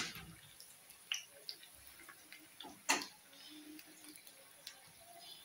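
Faint clatter of kitchen dishes and a spoon being handled: a few sharp knocks, the loudest at the very start and another about three seconds in.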